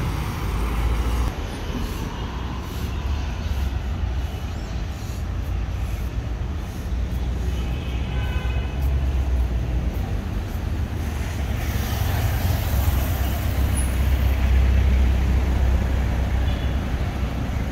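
City street traffic: buses, trucks and cars passing with a steady low engine rumble. A brief high-pitched squeal comes about eight seconds in, and a burst of hiss around twelve seconds.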